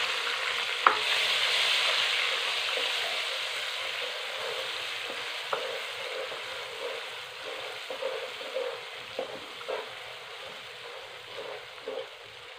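Freshly added chopped onions sizzling in hot ghee in a kadai, stirred with a wooden spoon that knocks against the pan now and then, sharply about a second in and several times later. The sizzle is loudest at first and fades steadily.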